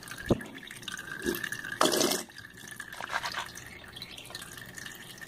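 Water from a countertop reverse-osmosis filter trickling into two plastic cups in a stainless steel sink, one fed by a small tube and one by a thin stream, with dripping. A couple of sharp knocks and a brief louder noise about two seconds in.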